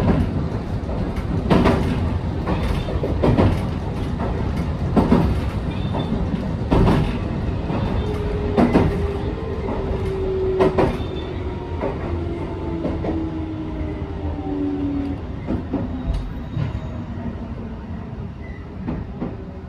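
A JR West 221 series electric train running, heard from inside the leading car. The wheels clack over rail joints at widening intervals. From about eight seconds in, a whine from the drive falls in pitch and the running noise eases, as the train slows.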